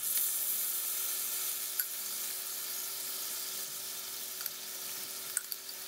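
Pork chops sizzling in hot olive oil in a cast iron frying pan: a steady hiss that slowly fades, with a few faint ticks.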